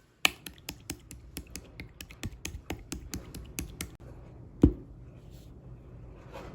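A quick run of sharp clicks or taps, roughly four a second, for nearly four seconds, then one louder, deeper thump a little over four and a half seconds in.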